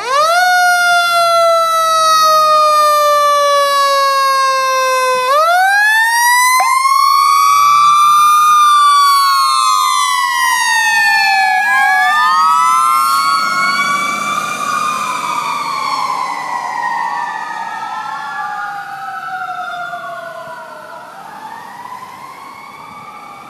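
Fire engine sirens, a Whelen electronic siren together with a Federal Q2B mechanical siren, sounding as the engine responds. They start suddenly loud, then rise and fall in pitch in overlapping wails, and fade over the last several seconds as the engine drives away.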